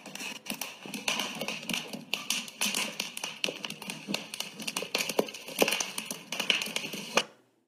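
Open fire crackling and popping around a metal grate during an outdoor pottery firing: a dense, irregular run of snaps that stops shortly before the end.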